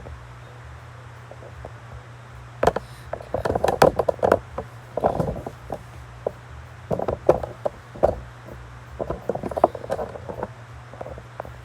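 Clicks, knocks and short scraping sounds of hardware being handled on a workbench, in clusters over several seconds, over a steady low hum.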